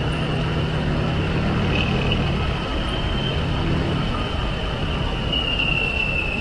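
Harley-Davidson Heritage Softail V-twin engine running steadily while riding, mixed with wind and road rush on a bike-mounted camera. A thin, steady high whine runs underneath and grows a little stronger near the end.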